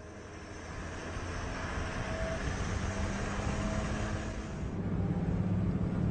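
Motor vehicle running: steady engine hum and road or traffic noise that swells about a second in and stays steady.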